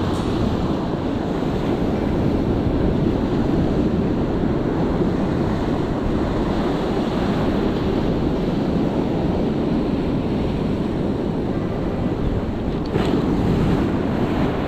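Ocean surf washing onto the beach with wind rushing over the microphone, a steady noise that swells a little near the end.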